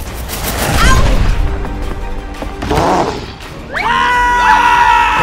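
Animated-film soundtrack: music with crashing impacts at the start and about a second in, then a loud, held, pitched cry from just under four seconds in.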